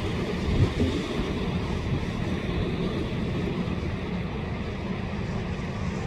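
Sea surf washing over a low breakwater: a steady rushing noise over a low rumble, with a brief louder thump about half a second in.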